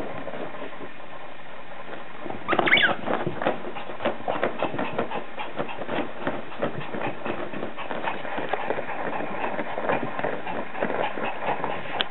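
Yorkshire terrier playing with a cloth: one short high squeal falling in pitch about two and a half seconds in, then a steady run of quick rustles and scuffs as the cloth is tugged about.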